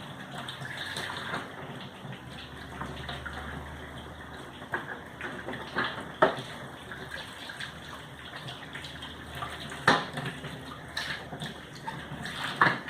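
Water running steadily, with several sharp knocks and clatters, the loudest about six and ten seconds in.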